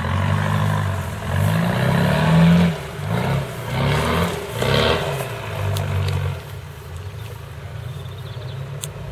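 Land Rover Defender engine revving in repeated surges as it drives through deep bog mud, the pitch rising and falling with the throttle. It settles to a lower, steadier run from about six seconds in.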